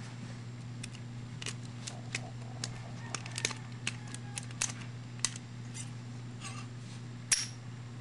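Hacksaw-blade lock pick working the pin tumblers of a Master Lock padlock under light tension from a tension wrench: a string of small, irregular metallic clicks and scrapes, with a sharper click near the end. A steady low hum runs underneath.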